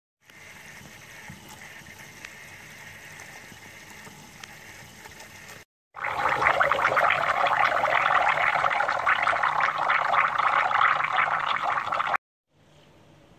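Bialetti Mukka Express stovetop pot brewing: coffee is forced up through the central column under steam pressure and bubbles and sputters into the upper chamber. A moderate hissing bubble comes first, then after a brief gap about six seconds in a much louder crackling gurgle that cuts off sharply near the end.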